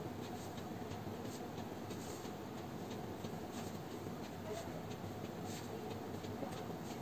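Pen drawing short straight lines on paper along a metal ruler: faint, intermittent scratchy strokes.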